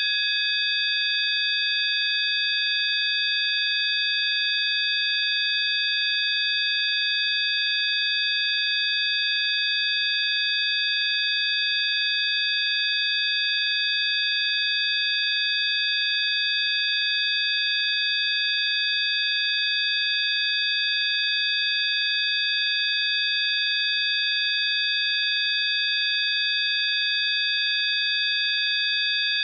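A chord of several high electronic sine tones, held steady and unchanging over a faint hiss: a synthesized 'healing frequency' tone.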